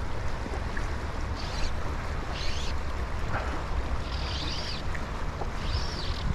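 Wind buffeting the microphone over the steady rush of river water, with four short high hissing sounds spread through it.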